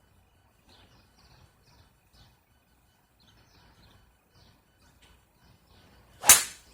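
A golf club strikes a ball: one sharp crack near the end. Faint bird chirps before it.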